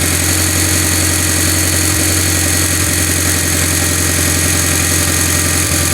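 Mitsubishi Lancer Evolution X's turbocharged 2.0-litre four-cylinder idling steadily with a fast, even knock. The knock comes on at cold start and under throttle and fades once warm; new cam solenoids, timing chain, guides and tensioner have not cured it, and the owner wonders about the cam sprockets.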